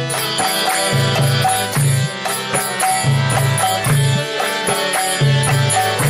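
Kirtan music: a steady rhythm of drum strokes and bright hand-cymbal strikes under sustained instrument notes.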